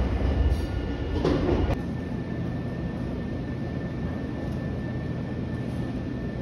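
Nankai commuter train rumbling as it pulls out of the station, cut off abruptly after about two seconds. Then comes the steady hum of a stationary train waiting at the platform, with a thin steady high tone.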